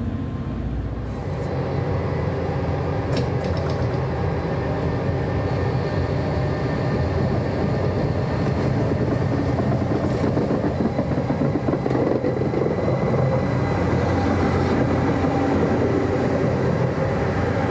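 Bombardier Traxx class 187 last-mile electric locomotive moving on power from its onboard diesel generator, with a steady engine drone and rolling noise from the wheels on the track. It slowly grows louder as the locomotive comes close and passes.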